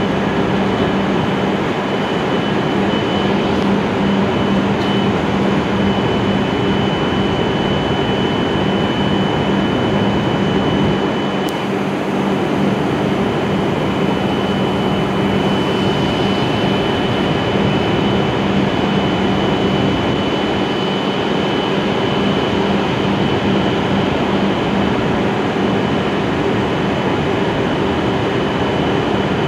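Steady hum of Hokuriku Shinkansen trains standing at the platform with their onboard auxiliary equipment running: a low drone with a thin, high whine held over it.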